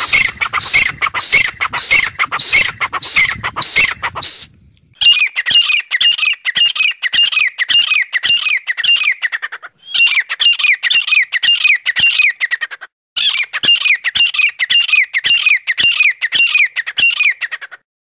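Francolins calling: loud, shrill notes repeated about four times a second in long runs, with brief breaks between the runs. The sound cuts off at the end.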